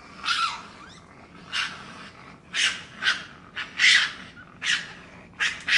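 Raccoon giving a quick run of short, hissing calls, about nine in all, irregularly spaced, with faint bird chirps behind.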